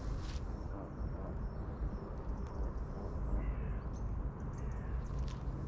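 Crows cawing over a steady low rumble.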